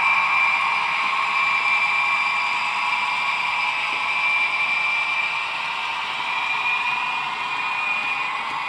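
Model diesel locomotive hauling a train of wagons on its layout track: a steady whirring hum with two held tones, easing slightly as it moves along.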